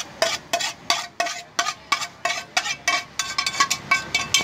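A metal spoon scraping and knocking against a cooking pan as cooked instant noodles are scraped out of it: quick strokes at about four a second, each with a short metallic ring.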